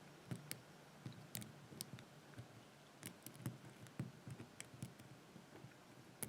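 Faint, irregular clicks of a lock pick working the pin stacks of a brass LOCKWOOD 6-pin padlock held under heavy tension.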